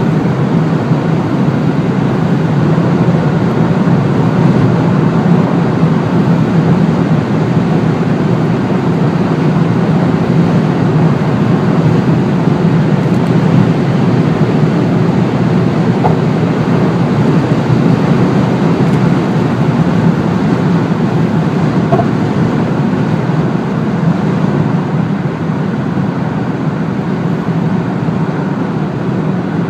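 Cabin noise of a Skoda Octavia Scout's 2.0 TDI diesel car at about 200–220 km/h: a steady mix of engine, tyre and wind noise. It eases slightly near the end as the car slows.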